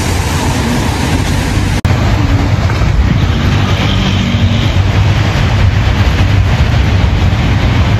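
Loud, steady low rumble of city street traffic, broken once by a brief dropout about two seconds in.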